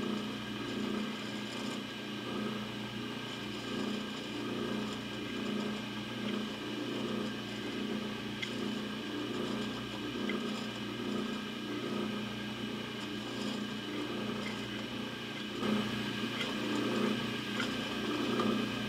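Drill press running steadily with a countersink bit chamfering the cross-holes in a hand-held metal tube: a constant motor hum under a rough cutting noise that keeps rising and falling.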